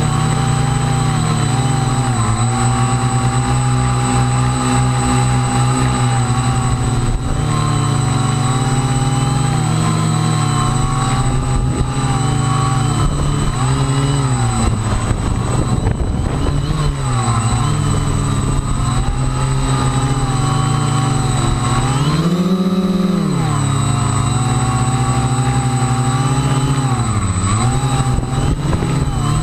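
Radio-controlled aircraft's motors and propellers running under constant throttle changes: a loud buzzing hum whose pitch keeps rising and falling, with a sharp surge and drop about two-thirds of the way in.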